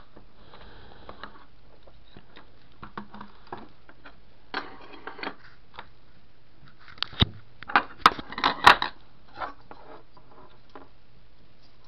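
Handling noise: scattered clicks, taps and rubbing as the action camera is picked up, moved and set down on the table, with a cluster of sharp knocks about seven to nine seconds in.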